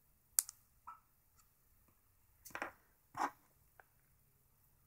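A handful of small sharp clicks and scrapes: a phone camera lens being snapped onto and taken off the adhesive metal ring around an iPod Touch's camera, with the louder clicks a little past halfway.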